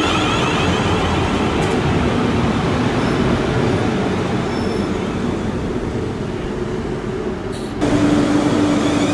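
Train running through a railway station: a steady rumble with a faint hum over it. About eight seconds in the sound changes abruptly, turning louder with a steady low hum.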